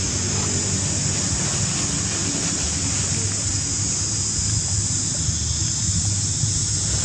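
Steady wind rumble on the microphone with a constant high hiss over it, unchanging throughout; no monkey calls stand out.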